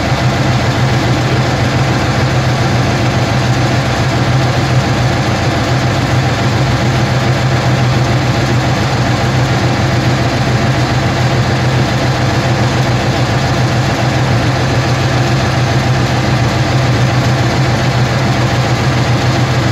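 T-34/85 tank's V-2 V12 diesel engine idling steadily, heard from inside the turret as a loud, even, deep drone.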